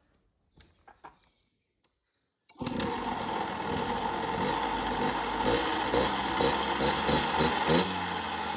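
Beta RK6 enduro's small two-stroke engine being kick-started, catching about two and a half seconds in after a few faint clicks, then running at idle with a few short blips of throttle.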